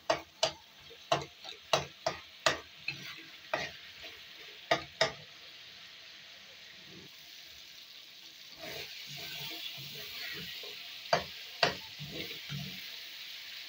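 A metal spatula knocks and scrapes against a kadhai as tomato masala is stirred and mashed: about ten sharp strikes in the first five seconds and two more later. Under them the masala sizzles in oil, a faint hiss that grows louder from a little past halfway.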